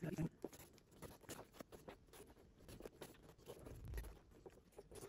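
Faint rustling and scattered small clicks of hand stitching leather: waxed thread drawn through the stitching holes and the needles and leather being handled, with a soft low bump about four seconds in.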